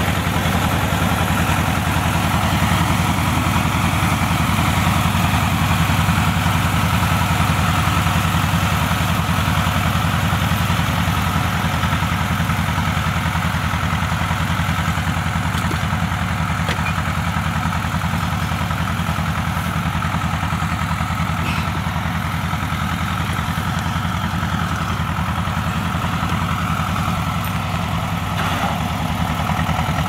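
Tractor engine running steadily at a constant note while it tows a load of felled birch trees.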